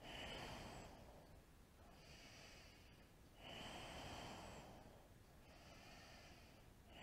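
Faint deep ujjayi breathing: slow, hissing breaths drawn through a narrowed throat, in swells of a second or so, stronger and weaker ones alternating over about two breath cycles.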